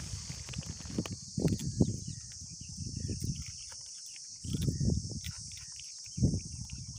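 Steady high chirring of insects in the grass, with gusts of wind rumbling on the microphone every second or two.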